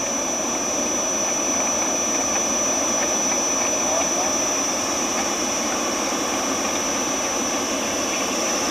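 Side-channel (regenerative) air blower for pond aeration running steadily with a stainless steel silencer held on its port: an even rush of air with a steady high whine on top.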